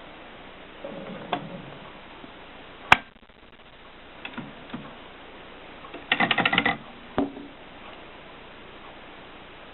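Erika 5 manual portable typewriter mechanism making scattered clacks and clicks, with one sharp loud clack about three seconds in and a quick rattle of about a dozen clicks a little past six seconds.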